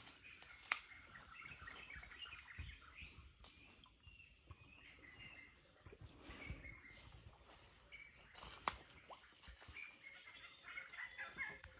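Rural outdoor ambience: a steady high-pitched insect drone with birds chirping here and there. Two sharp clicks stand out, one about a second in and one near nine seconds.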